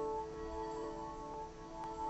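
Ambient soundscape music built from looped guitar: several sustained tones held and overlapping, slowly shifting, with a few soft new notes coming in.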